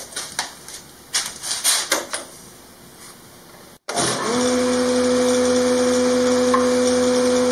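A few faint knocks and rustles of handling, then, about four seconds in, a Grizzly G0453 15-inch thickness planer is switched on: its motor and cutterhead spin up within a moment and run with a loud, steady drone.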